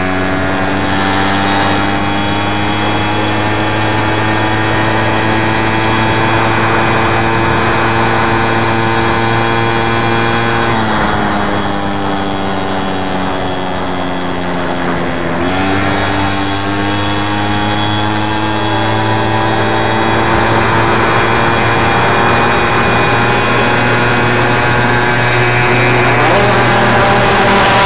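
VeloSolex moped's small two-stroke engine running close by, its pitch climbing slowly, sagging for a few seconds about eleven seconds in, then picking up again about fifteen seconds in and climbing.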